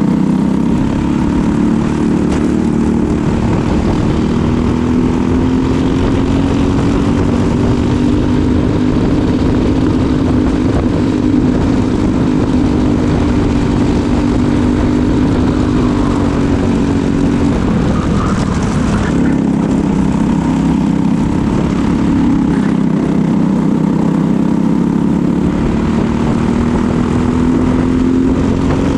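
Briggs & Stratton LO206 single-cylinder four-stroke kart engine running at race pace. Its pitch rises and falls with speed, drops sharply about two-thirds of the way through as the throttle is lifted, then climbs again.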